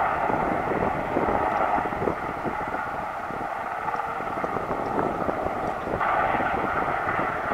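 Westland Sea King Mk41 helicopters flying past: the steady whine of their twin turboshaft engines over rotor noise. The sound turns brighter about six seconds in.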